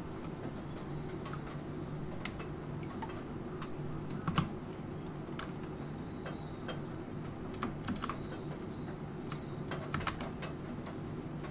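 Typing on a computer keyboard: sparse, irregular keystrokes with a few louder clustered taps about four seconds in and near the end, over a steady background of rain.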